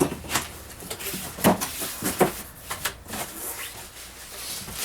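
Cardboard box being opened by hand: a few irregular sharp knocks and scrapes of cardboard flaps and packing, with rustling between them.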